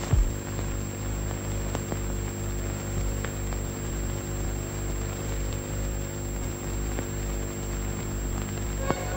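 Steady hum and hiss of an old film soundtrack, with one low thump just after the start and a few faint clicks; music begins right at the end.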